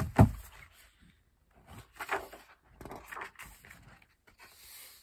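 Paper pages of a picture book being turned and handled: a thump about a quarter second in, then several short paper rustles.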